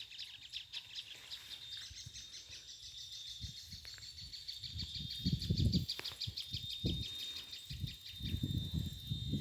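A continuous high chirring trill from wild creatures, insects or birds, made of rapid pulses at one steady pitch. From about a third of the way in it is joined by irregular low thumps and rumbles, loudest around the middle.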